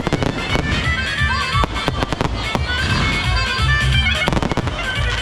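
Fireworks going off in a string of sharp bangs, some in quick clusters, with music playing throughout.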